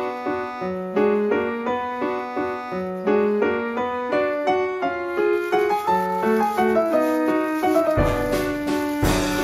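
Background piano music, a light melody of short separate notes. Near the end a rustling noise comes in under it, the crinkle of a plastic bag being untied.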